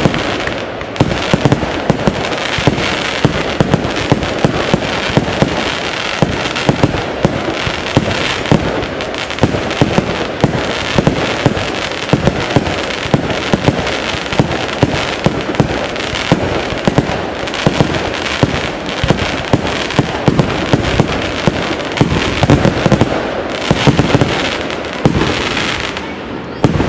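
Fireworks display going off: an unbroken run of bangs from aerial shells, several a second and irregular.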